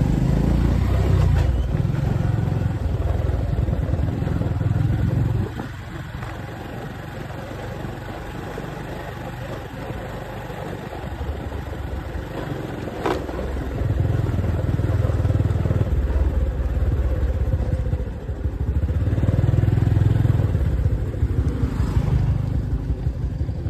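A motorcycle running on the move, with heavy low rumbling that drops away for several seconds in the middle and then comes back.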